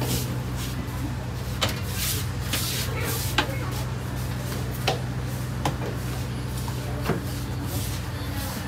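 A steady low hum from the standing passenger train, with scattered sharp clicks and knocks, about seven over the stretch, from footsteps and luggage at the carriage doorway.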